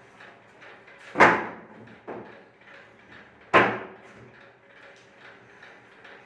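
Two loud bangs about two seconds apart, each dying away quickly, with a fainter knock between them.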